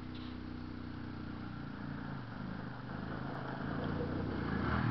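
Quad ATV engine running, growing steadily louder as the ATV approaches.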